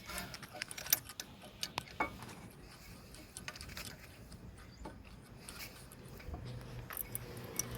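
Scattered light metallic clicks and taps of hand tools working on a brake caliper while its piston is pushed back, more of them in the first couple of seconds and again near the end.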